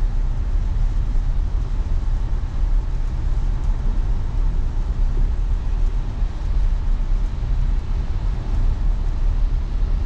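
Steady low road and tyre noise inside the cabin of a 2020 Tesla Model Y electric car driving on wet streets.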